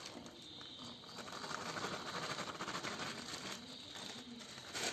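Hands mixing maida flour into a wet mash of banana, sugar and yogurt in a bowl to start the dough: a faint crackly rustling and squishing, busiest in the middle.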